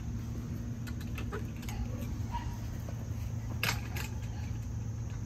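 A steady low hum with scattered faint clicks and one sharper click about two-thirds of the way through.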